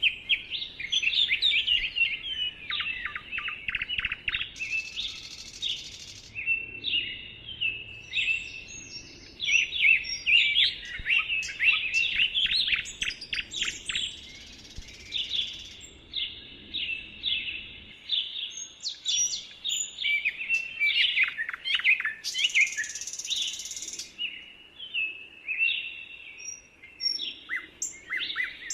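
Several songbirds singing and chirping at once, in quick overlapping runs of short whistled notes with no break.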